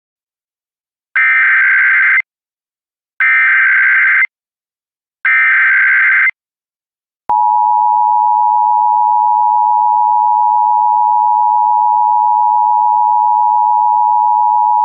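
Emergency Alert System SAME header: three identical one-second bursts of warbling digital data tones, about a second apart, that encode the alert's event and area. About seven seconds in, the loud, steady two-tone EAS attention signal (853 and 960 Hz) begins and holds, announcing the emergency message that follows.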